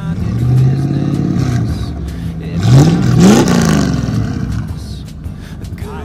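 Fox-body Ford Mustang GT's V8 revved at the tailpipes: two throttle blips, the pitch climbing and falling, the second and loudest about three seconds in, then settling back toward idle.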